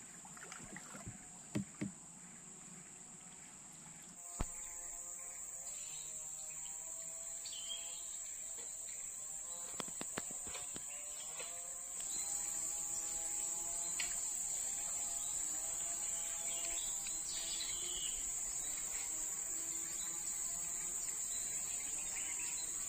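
Steady high-pitched drone of an insect chorus, growing louder about four seconds in and again halfway through.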